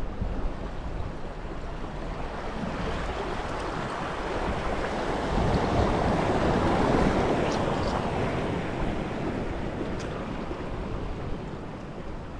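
Sea waves washing against a rocky shore, with wind on the microphone. The rushing swells louder in the middle and then fades back.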